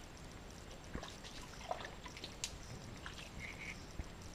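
Faint trickling and dripping of shallow muddy water, with a few small clicks and splashes, as a mud crab is handled and tied with string in a mangrove puddle.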